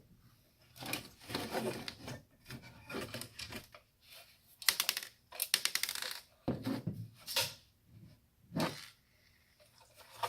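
Clattering and clicking of metal and plastic parts as a small electronic device is handled and taken apart, in several bursts of quick rattling clicks.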